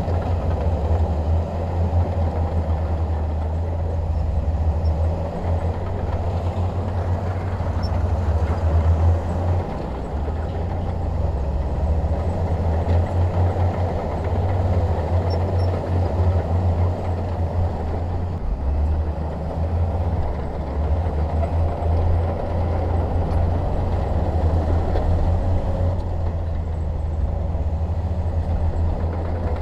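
Bulldozer's diesel engine running steadily with a deep low rumble, its loudness wavering a little as it works.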